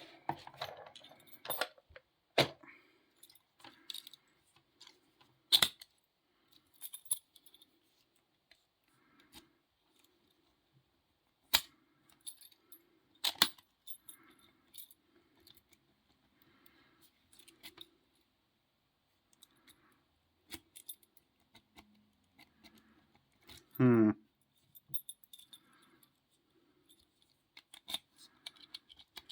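Small metal clicks, ticks and jingles as an opened padlock, its keys and lock picks are handled. About 24 seconds in there is one loud scrape that falls in pitch.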